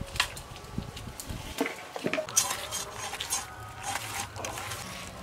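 Scattered clinks, knocks and scrapes of metal bowls and utensils being handled during food preparation.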